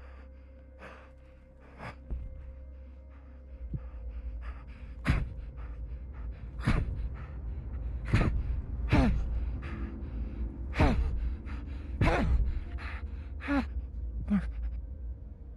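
A man in a spacesuit helmet gasping and grunting for breath: faint at first, then about eight heavy gasps from about five seconds in, each dropping in pitch, over a low steady rumble.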